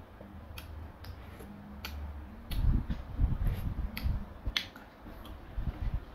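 A person eating soup with a spoon: a scattered series of sharp clicks from the spoon against the bowl and from the mouth, with low chewing and sipping sounds about halfway through.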